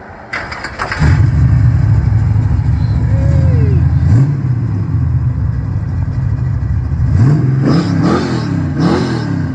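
Car engine running at a steady low idle, then revved in several quick blips near the end.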